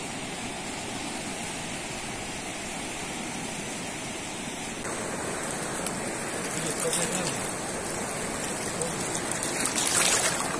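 Steady rush of a fast, muddy river. About five seconds in it becomes closer, with water lapping and splashing among the rocks at the edge, loudest in a splash near the end.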